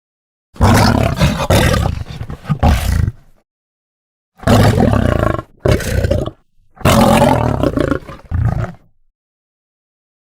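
Lion roaring in three separate bouts, each about two to three seconds long, with dead silence between them.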